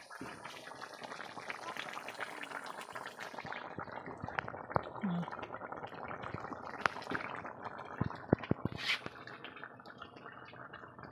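Chicken curry bubbling at a boil in a wok over a wood fire: a steady bubbling broken by many small irregular pops.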